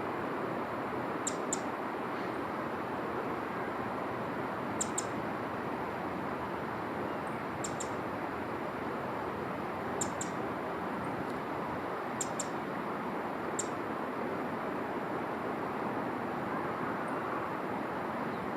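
Small bird giving brief, very high chirps, mostly in quick pairs, every two to three seconds, over a steady rushing background noise.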